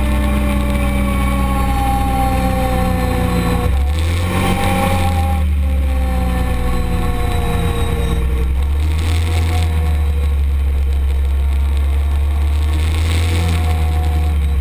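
Arctic Cat side-by-side UTV engine running under way, a steady loud drone whose pitch sags slowly as it eases off.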